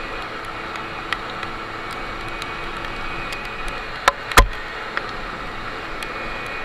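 Simson S51 moped's single-cylinder two-stroke engine running steadily under way, with scattered small ticks. Two sharp knocks come about four seconds in, half a second apart, and the second is the louder.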